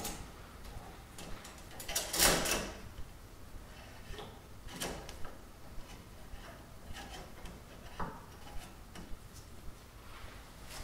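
Light clicks and scrapes of a motocross fork's damping cartridge being slid up inside the fork tube by hand. There is one louder sliding scrape a little after two seconds in.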